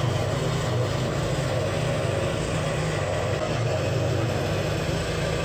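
Mastercraft scroll saw running steadily, its reciprocating blade cutting a circular hole in a 5/8-inch melamine board.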